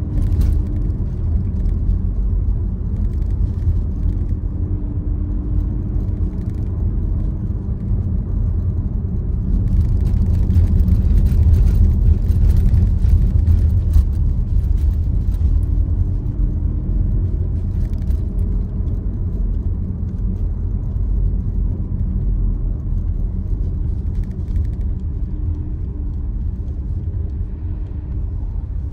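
Car driving through town, heard from inside the cabin: a steady low rumble of engine and tyres. It grows louder with added hiss for a few seconds near the middle, then eases off toward the end as the car slows into a queue at traffic lights.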